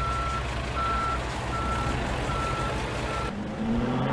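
Vehicle reversing alarm beeping, a steady high beep repeating about once every three-quarters of a second over a low engine rumble. About three seconds in the beeps stop and an engine begins revving up, rising in pitch.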